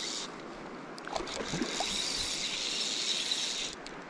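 Fly reel's click-and-pawl drag buzzing for about two and a half seconds, starting about a second in, as a hooked rainbow trout runs and takes line; river flow hisses underneath.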